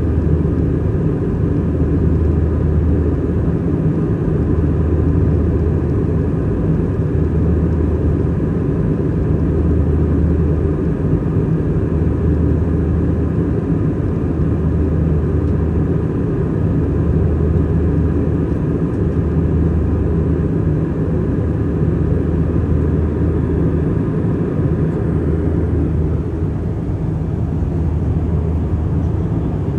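Steady jet-engine drone and airflow noise inside an Airbus A320-200 cabin in flight. A deep low hum swells and fades about every two seconds.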